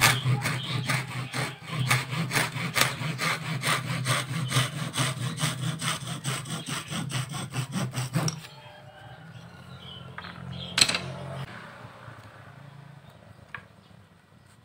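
Hand saw cutting through a bundle of thin bamboo slats held in a wooden angle jig, with quick, even back-and-forth strokes, about three or four a second, that stop about eight seconds in. A single sharp knock follows a couple of seconds later.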